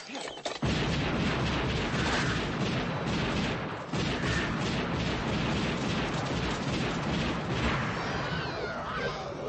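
A Deadite's shrill, drawn-out shrieking and the crash of a fight, with shotgun blasts among it. The sound becomes loud and dense just under a second in and stays that way until near the end.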